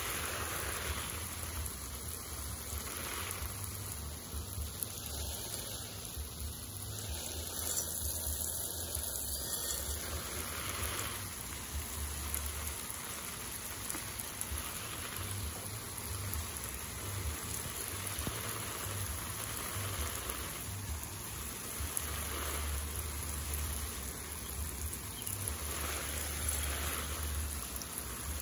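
Steady hiss and patter of water falling onto garden plants and soil, with an uneven low rumble on the microphone.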